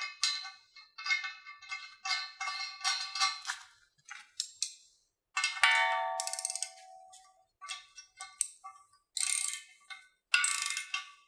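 Background music: a rhythmic run of short, bright, bell-like notes with a sliding tone in the middle and cymbal-like splashes near the end.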